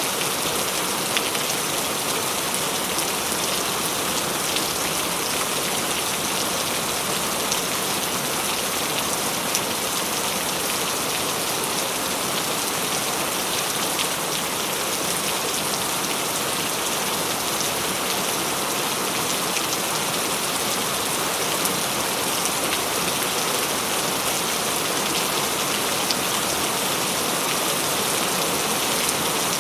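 Steady rain falling on a surface, an even hiss with many small drop ticks and no change in strength.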